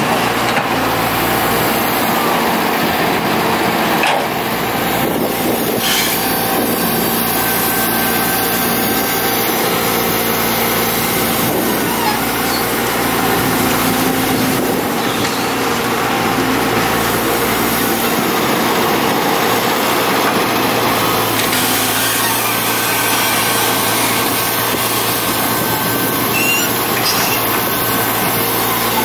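Kobelco hydraulic excavator's engine running steadily as it digs and loads soil into a dump truck, with a few brief knocks.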